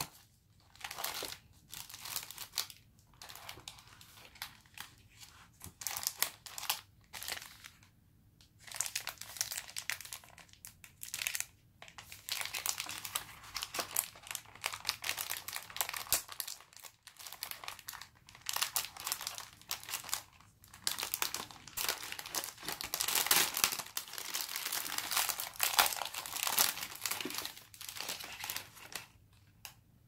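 Packaging of a chocolate box being unwrapped by hand: clear plastic film and a metallic printed paper wrapper crinkling and tearing. The rustles come in scattered handfuls at first, then run nearly without a break through the second half and stop shortly before the end.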